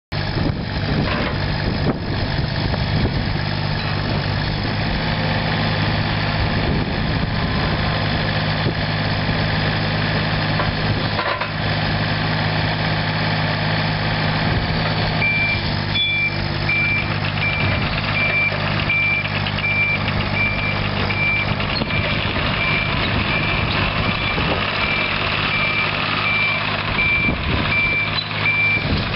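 2007 IHI 30NX-2 mini excavator's diesel engine running steadily under work. From about halfway a high-pitched travel alarm beeps about once a second as the machine tracks across the yard.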